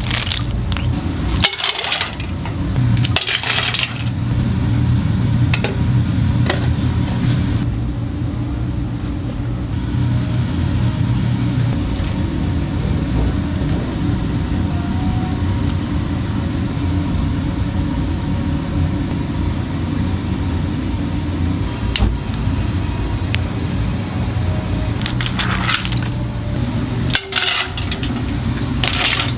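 Hard clam shells clicking and clattering against each other as the clams are scooped and handled by hand, in bursts during the first few seconds and again near the end. Under it runs a steady low rumble from the stove.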